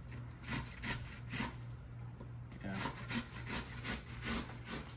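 A raw onion being grated on a stainless steel box grater: repeated rasping strokes, about two or three a second, with a short pause a little before the middle.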